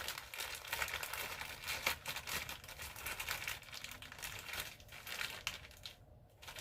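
Crinkling of a snack bag being handled, a dense crackly rustle that dies down near the end.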